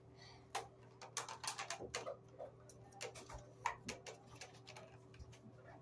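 Faint, irregular light clicks and taps over a steady low hum.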